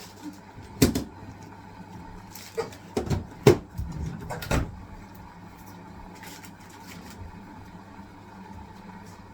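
Hisense washing machine on its wool cycle: a handful of knocks and clunks during the first few seconds, then a steady low hum from the machine.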